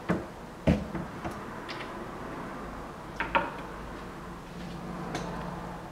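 Metal clunks and clicks from a reloading press as its ram and shell holder are worked up and down. There are a few separate knocks in the first second or so, a quick pair near the middle and one more near the end.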